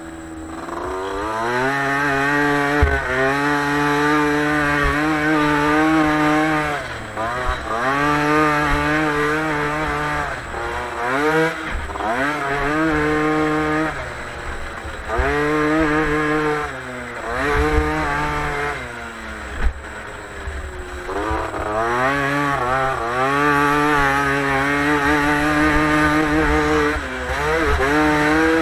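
Motocross bike engine heard from onboard, revving up and dropping off again and again as the throttle opens and closes: pitch climbs, holds for a second or few, then falls, with a longer dip a little past the middle.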